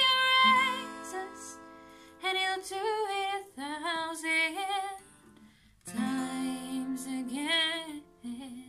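A woman singing with an acoustic steel-string guitar, in several short phrases with gaps between them. The last note dies away near the end.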